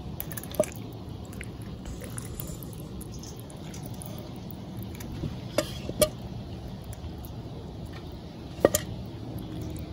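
Buffalo sauce pouring and dripping onto fried chicken tenders in a stainless steel bowl, with a few sharp taps against the bowl, the loudest near the end as a wooden spoon spreads the sauce.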